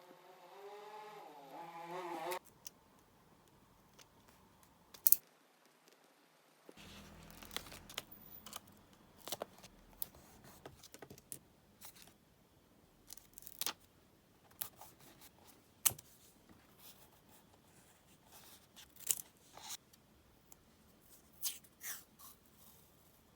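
Close-up paper-crafting sounds of scissors snipping and stickers and masking tape being torn, peeled and pressed onto a paper diary page, heard as scattered snips, clicks and short scrapes. About the first two seconds hold a brief wavering squeak that rises in pitch.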